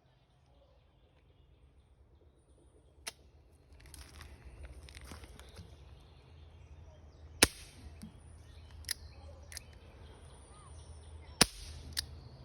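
Air gun shots: six sharp single cracks at uneven spacing, the loudest about seven seconds in and another strong one about eleven seconds in.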